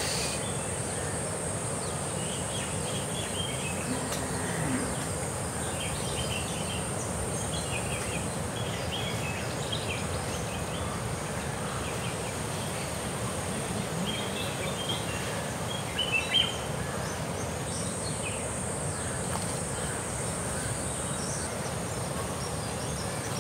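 A steady, high-pitched insect drone with scattered short bird chirps over an even background hum of outdoor noise.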